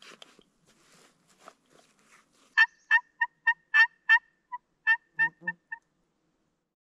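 Faint rustling, then about two and a half seconds in a hand-operated turkey call sounds a quick run of about eleven loud, two-toned hen-turkey yelps, stopping abruptly.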